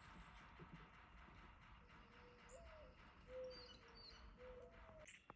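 Quiet outdoor background with faint bird calls: a few soft, low whistled notes that step up in pitch and a few brief high chirps in the middle. The chirps are likely the two squabbling downy woodpeckers.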